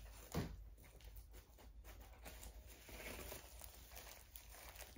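Faint rustling and crinkling as a cross-stitch kit in its plastic packaging is handled, with one brief bump about half a second in.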